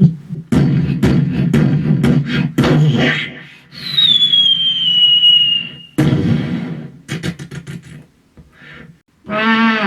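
Sound effects made with the mouth by a vocal mimic. A run of clicks and thumps gives way to a long whistle sliding downward, then a quick string of clicks, and near the end a wavering hum-like tone.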